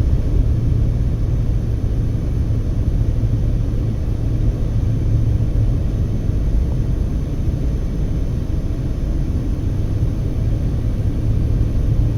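Steady low rumble of a car driving along the road: engine and tyre noise.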